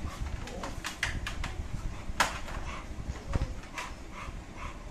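American bully dog moving about in a wire crate, the metal crate rattling and clicking with a sharp knock about two seconds in; near the end the dog gives a run of short, evenly spaced whimpers.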